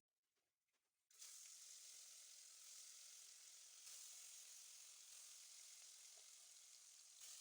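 Fish frying in hot oil in a pan: a steady sizzle that starts suddenly about a second in.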